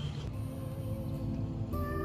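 Background music with soft held notes, starting about a third of a second in and growing fuller near the end.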